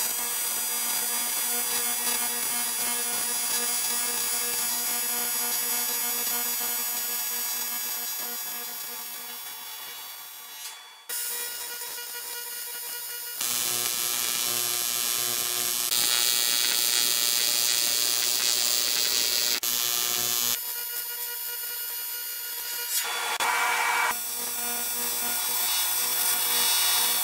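AC TIG welding arc on aluminum: a steady buzzing hiss with a constant hum in it, broken into several separate welds whose loudness and tone change abruptly every few seconds.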